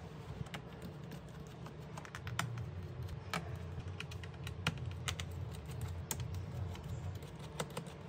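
Irregular light clicks and taps on a laptop's hard plastic, a few a second and uneven, over a steady low hum.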